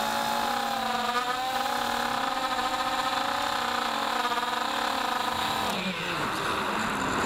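FPV racing quadcopter's Racerstar 2204 brushless motors and propellers humming at a steady throttle, the pitch wavering slightly. About six seconds in the pitch drops sharply as the throttle comes off, leaving a rushing noise.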